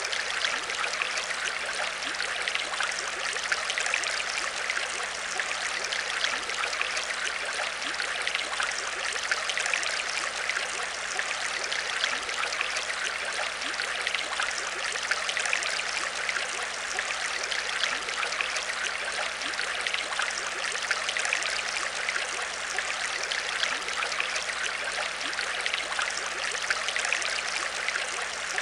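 Aquarium water trickling and splashing steadily, an even run of small splashes with a faint low hum beneath.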